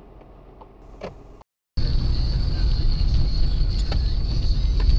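Dashcam audio of a car driving: after a quiet stretch with a few faint clicks and a short dropout, a loud steady low rumble of engine and road noise starts, with a thin steady high whine over it.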